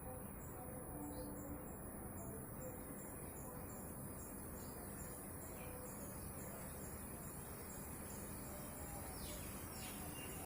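Insects trilling steadily in a faint outdoor background, with a short high chirp repeating regularly, about every two-thirds of a second. A couple of quick falling bird calls come in near the end.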